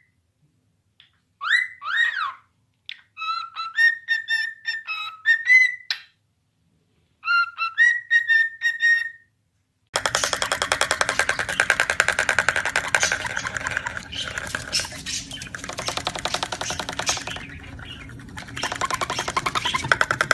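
A parrot whistling a series of short clear notes, some rising and some held level, with silent gaps between phrases. About halfway through, loud rhythmic music with a steady beat takes over.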